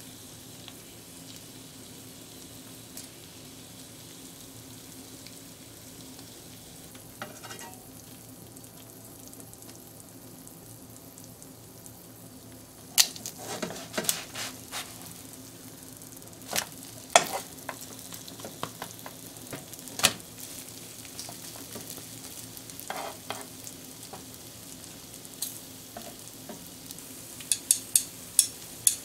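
Pancakes and bacon frying with a steady sizzle in a nonstick pan. From about halfway through come clicks and knocks of a spatula and chopsticks against the pan, ending in a quick run of taps.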